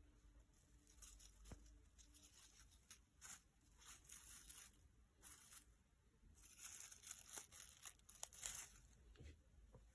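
Faint rustling and crinkling of a scarecrow decoration's shredded paper straw and cloth costume as a hand moves them, in a series of short rustles that are busiest in the second half.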